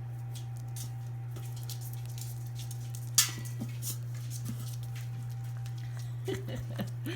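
Five-week-old Labrador puppies shuffling and pawing about, with scattered light clicks and scratches, one sharp knock about three seconds in, and a few short squeaky whimpers near the end. A steady low hum runs underneath.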